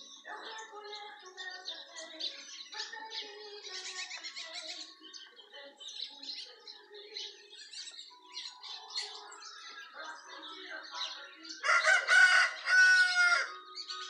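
A flock of small finch-like birds chirping and twittering continuously. About twelve seconds in, a rooster crows once in two drawn-out parts, the loudest sound.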